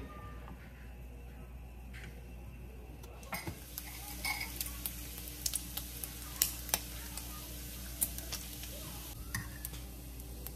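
Bacon sizzling in a frying pan, with sharp clicks and taps of a fork against the pan and plate scattered through the second half.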